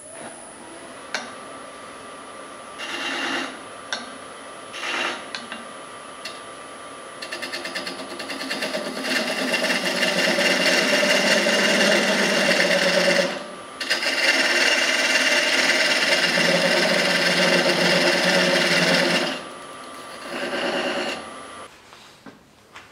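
Wood lathe running with a steady whine while a turning tool cuts into a spinning oak blank, throwing shavings. A few short cuts come first, then long continuous cutting with a brief break about halfway and a last short cut. The lathe's whine stops near the end.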